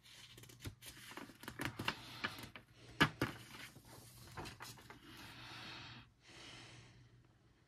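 A coloring-book page being turned by hand: paper rustling and crackling, with the sharpest crackle about three seconds in, then two soft, breathy hisses.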